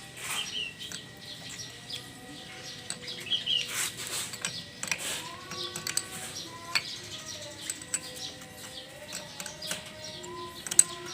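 Small birds chirping and tweeting, with scattered sharp clicks and knocks.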